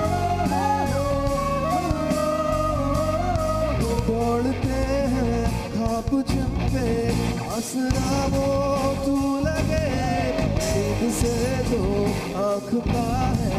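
Live rock band playing a slow ballad: drums, bass and electric guitars, with a wavering melody line carried over them.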